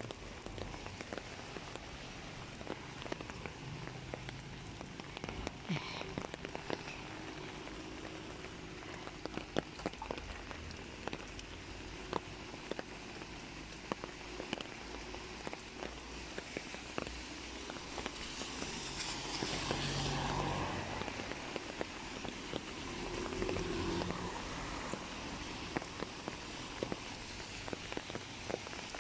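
Rain falling on a fabric umbrella held overhead: many small, irregular drop ticks over a steady hiss of rain, with a louder rush of noise about two-thirds of the way through.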